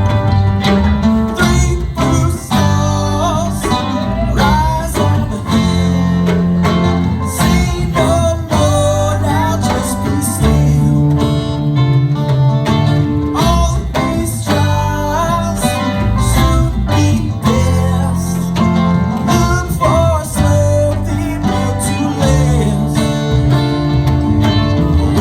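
Live band playing a guitar-led song, with a guitar melody over bass and drums.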